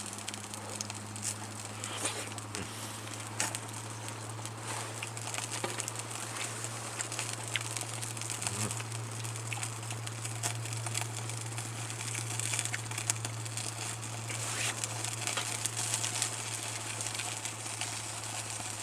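Crackling and popping of food grilling over a campfire, many small irregular pops over a steady low hum.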